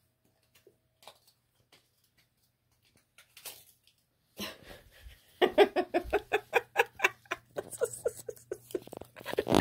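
A person laughing in a quick string of short "ha" notes, about four a second, starting a little before halfway through after near silence with a few faint clicks.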